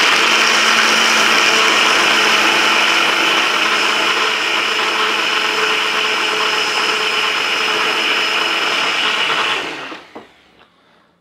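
Electric blender running steadily at full speed, crushing ice with water and drink powder into a slush. It shuts off about a second before the end.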